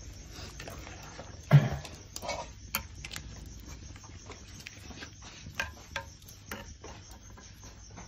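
Ladle working in a metal cooking pot set over a wood fire: scattered light clicks and ticks, with one louder knock about one and a half seconds in.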